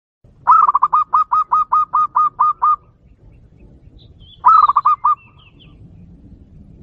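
Zebra dove (perkutut) song played from a small loudspeaker as a trapping lure: a rapid run of about a dozen clear notes, then a shorter run of about five about four and a half seconds in. Faint chirps from other birds are heard between the runs.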